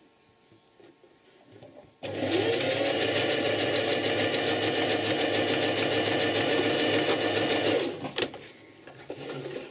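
Necchi domestic sewing machine stitching a seam at a steady speed with a fast even rhythm of needle strokes, starting about two seconds in and stopping near the end, followed by a few light clicks as the fabric is handled.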